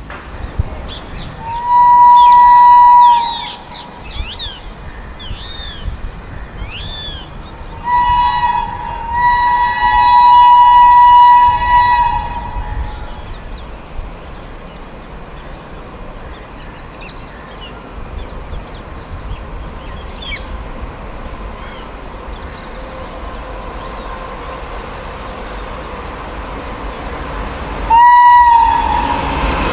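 An Indian Railways train horn sounds a two-note blast about two seconds in, a short toot and then a longer blast of about three seconds in the middle, and one more short blast near the end. Birds chirp between the first blasts, and the rumble of a passing train rises at the very end.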